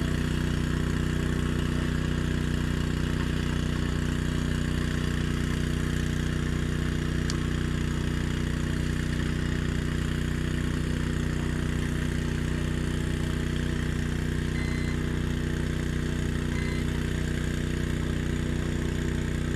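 Boat engine idling steadily with an even low hum. Two faint short beeps come about three-quarters of the way through.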